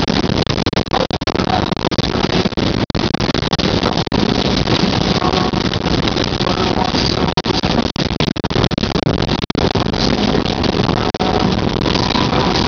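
Heavy rain pouring onto a car's windshield and roof, heard from inside the cabin: a loud, steady rush of noise.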